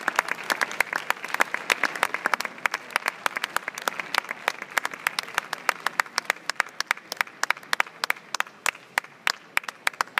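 Crowd applauding, with many sharp claps close by. The general applause dies down in the second half, leaving separate claps.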